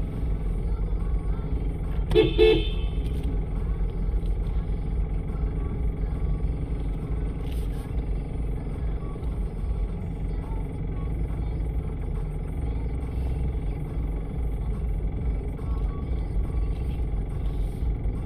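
Steady low rumble of a car idling, heard from inside the cabin, with one brief car-horn toot about two seconds in.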